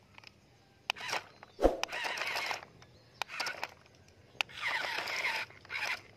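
Plastic toy dump trucks being pushed over sandy dirt in several short goes: bursts of scraping and crunching from wheels on grit, with a few sharp plastic clicks and one thump.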